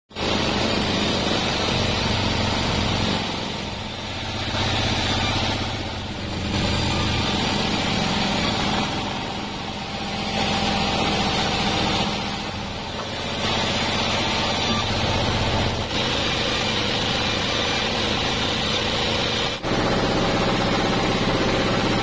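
Large band sawmill running and cutting cananga (ylang-ylang) logs. The cutting noise swells and eases every few seconds as passes start and finish.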